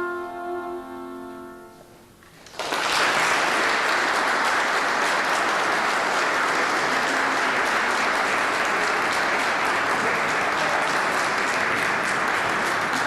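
The last held notes of an instrumental solo with accompaniment fade out. About two and a half seconds in, the audience breaks into steady applause.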